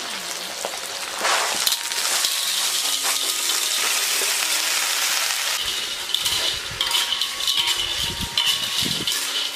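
Food stir-frying in a hot pan: a steady sizzle, joined in the second half by a spatula scraping and clinking against the metal in repeated strokes.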